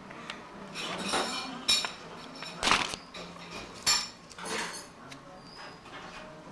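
Handling noise close to the microphone: about five short knocks, clinks and rustles as a plastic Easter bucket of wrapped candy is moved about.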